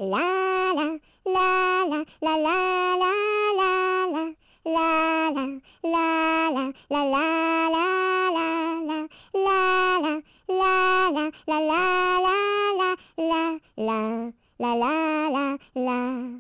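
A French nursery rhyme sung by a single high voice without accompaniment, in short phrases of held notes that step up and down, separated by brief pauses.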